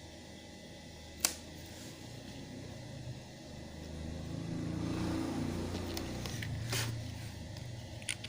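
Sharp clicks from pressure-washer parts being handled, about a second in, near seven seconds and again just past eight seconds, over a low rumble that swells and fades in the middle.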